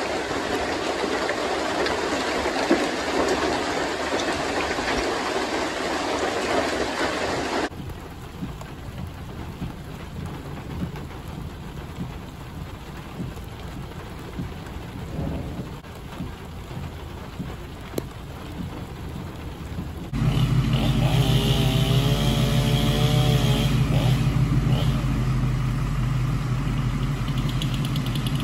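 Heavy wind-driven rain from a severe thunderstorm microburst, a dense steady rush that cuts off about eight seconds in to lighter rain. After about twenty seconds a fire engine's diesel engine idles with a deep steady hum.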